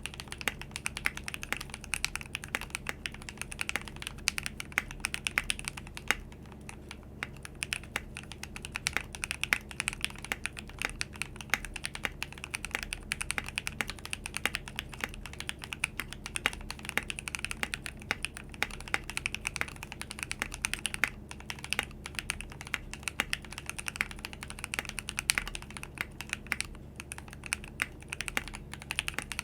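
Continuous fast typing on a custom 60% mechanical keyboard with lubed and filmed Glorious Lynx linear switches, an aluminum plate and foam, in a frosted acrylic case, under PBT Cherry-profile keycaps: a dense run of crisp keystroke clicks, with a brief pause about six seconds in.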